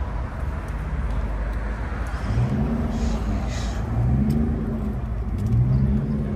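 Car engine running with a steady low hum, its pitch rising and falling three times as it is blipped.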